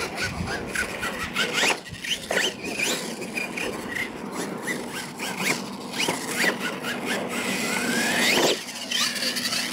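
R/C monster truck's electric motor whining up and down in quick throttle bursts as the truck accelerates and slides on the dirt, with a longer rising whine near the end, over a steady rush of tyres on loose dirt.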